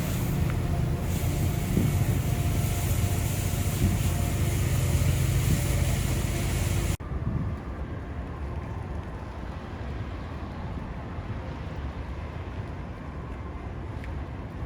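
Blizzard wind buffeting the microphone, a loud steady rumble and rush. About seven seconds in it cuts off suddenly to a quieter, duller steady background noise.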